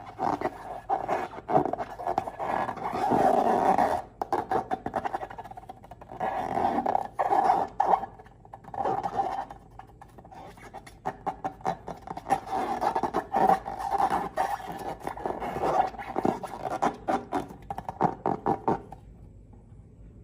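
Slime being squeezed and worked by hand: dense sticky crackles and squelches in irregular surges, dying away near the end.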